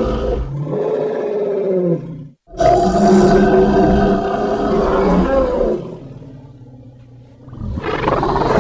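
Ankylosaurus creature roars from Primal, a designed dinosaur voice built partly from elephant calls. One roar breaks off about two seconds in, a longer one follows at once and fades away, and another starts near the end.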